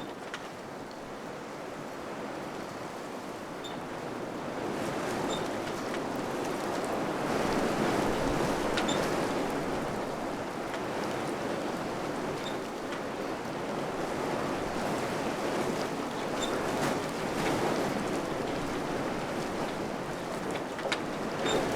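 Wind blowing in gusts, swelling and easing, with a few faint ticks.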